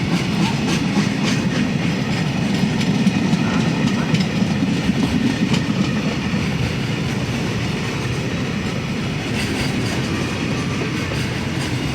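Freight train rolling past: a steady rumble of wheels on rail with a clickety-clack of wheels over rail joints, a little louder in the first half.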